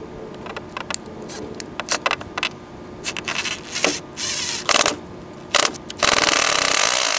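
Cordless drill driving a screw through a pre-drilled pilot hole into a carbon fiber side skirt extension. Light clicks of handling come first, then a few short bursts of the drill about four seconds in, then a longer run from about six seconds.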